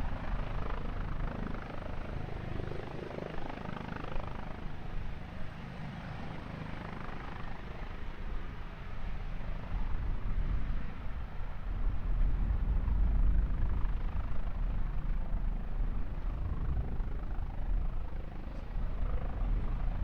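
Aircraft noise at an airport: a continuous rumbling roar that grows louder a little over halfway through.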